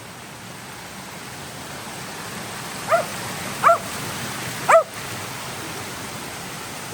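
Dog barking three times, short barks about a second apart, over the steady rush of creek water and a waterfall.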